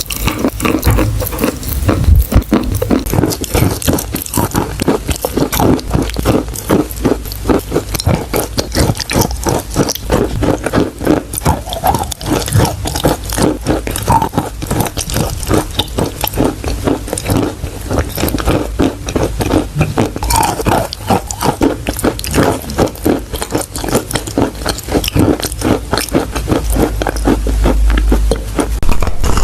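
Close-miked chewing of chalk: a dense run of crisp crunches and grinding crackles, many a second, without pause.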